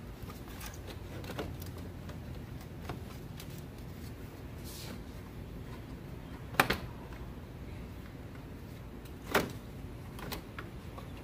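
Scattered clicks and knocks of parts and tools being handled while the car's radiator cooling fan assembly is worked loose, with two sharper knocks about six and a half and nine and a half seconds in, over a low steady background noise.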